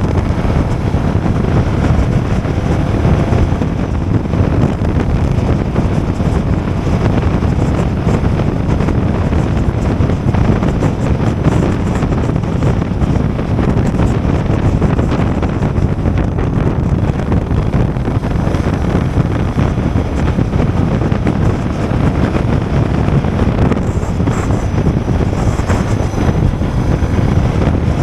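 Steady wind rush on the microphone of a Suzuki DR650 motorcycle under way, with its single-cylinder engine running underneath.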